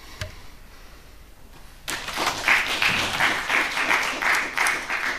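Audience applause, starting suddenly about two seconds in.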